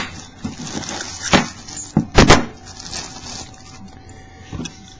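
Plastic packaging being pulled open to free a padlock: rustling and crinkling with several sharp snaps and clacks, the loudest a pair of snaps a little past two seconds in.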